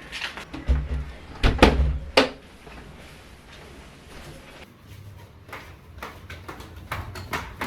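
A few heavy knocks and thumps in a small room, like a door or cupboard being shut, followed by lighter clicks and taps of things being handled.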